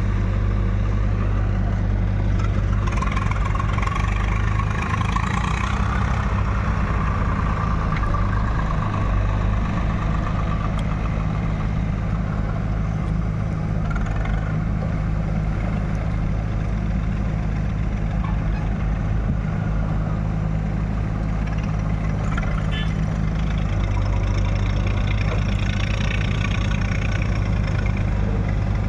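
Heavy diesel engine running steadily, with a higher whine from about three to ten seconds in and a change in the engine note near the end.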